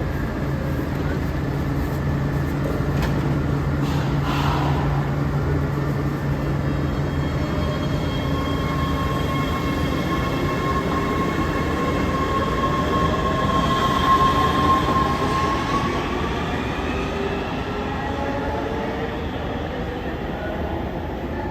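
LA Metro B/D Line subway train in the underground station: a steady low hum, then the train's motors whine with a rising pitch from about halfway through as it picks up speed.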